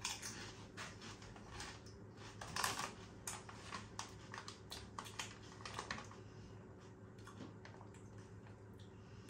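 Crunching potato crisps in the mouth: a faint, irregular run of crisp crackles, busiest in the first few seconds and thinning out towards the end.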